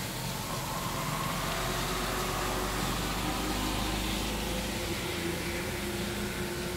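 Steady hiss of rain falling on a street, with the low hum of a car engine underneath as a car creeps along the wet road; the rumble fades about five seconds in.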